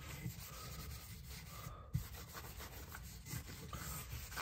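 Faint rubbing of a cloth pad back and forth over a wooden rifle stock, wiping on a thin coat of Tru-Oil finish.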